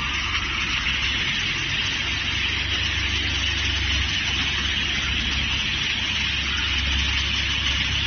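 Multi-blade rip saw running steadily: a constant high whirr over a low motor hum.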